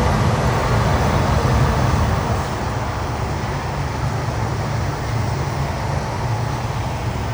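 Steady low rumbling ambient noise with no distinct events, easing slightly about two seconds in.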